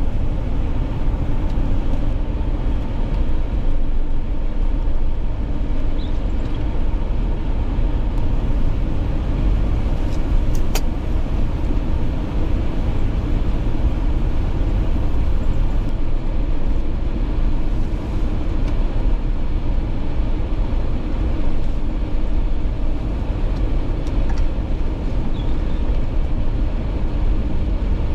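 A Jeep driving on the highway: steady road, tyre and engine noise, heaviest in the low end, with a few faint ticks.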